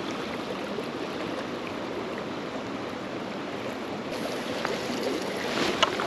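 River water running steadily through a shallow run, an even rushing sound, with a few short sharper sounds near the end.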